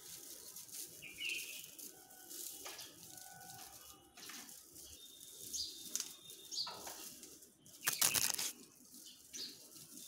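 A bundle of dry wheat stalks rustling as it is handled and shaken, in short repeated bursts, with the loudest rustle about eight seconds in.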